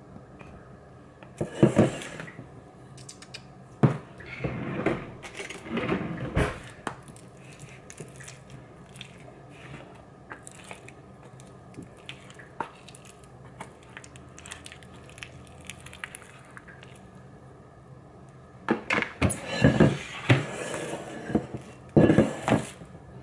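Kitchen handling noise: plastic wrap crinkling and a stainless steel mixing bowl knocking as it is handled, in clusters at the start and again near the end. In between, a metal spoon clicks and scrapes in a plastic tub of sticky peanut and palm-sugar filling.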